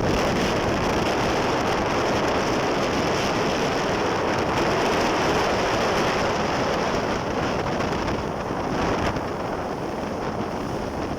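Wind on the microphone and rushing water from a jet ski under way, with a steady high whine from the craft, easing slightly near the end.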